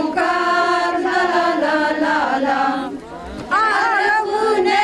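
A group of women singing a traditional Romanian folk song together, unaccompanied, in long held notes; the singing breaks off briefly about three seconds in and then starts again.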